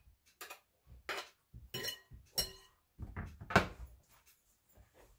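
Kitchen knife scraping and tapping chopped onion off a cutting board into a glass mixing bowl: a scatter of light knocks and scrapes, with one louder knock about three and a half seconds in.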